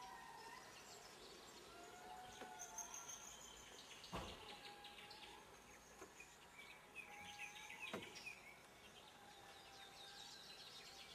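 Faint forest ambience: several birds give short whistled calls over a high insect buzz. Two soft knocks come about four and eight seconds in.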